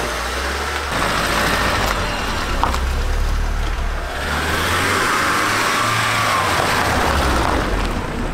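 BMW E30's engine running as the car drives out of the garage and across gravel, with the crunch of its tyres on the stones. The car has just been restarted after 18 months laid up.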